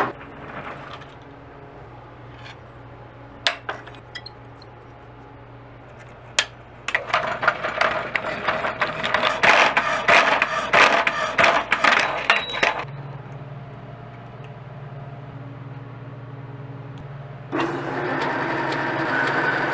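Power hacksaw running with a steady motor hum, its blade rasping through a rusty steel rod in loud strokes for several seconds. Then a metal lathe runs, and near the end its tool begins facing the end of the rod.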